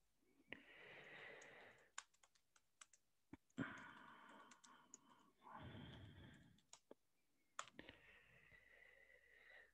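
Faint, irregular clicking, like computer keyboard typing and mouse clicks, with soft hissy noise in between.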